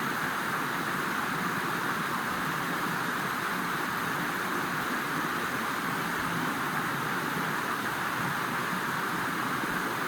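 Steady rush of fast-flowing river water, an even hiss with no breaks or changes.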